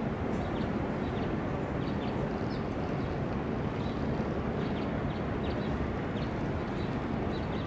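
A steady, even engine rumble, with faint short high chirps scattered through it.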